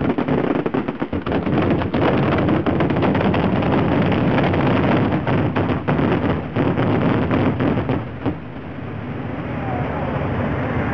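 Fireworks firing in a rapid barrage: a dense run of launch pops and crackling that stops abruptly about eight seconds in, leaving a softer, steady rushing noise.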